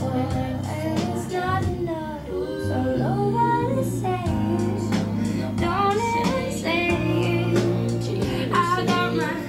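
Vocal music playing over a hi-fi system: a sung melody over guitar and a steady bass line.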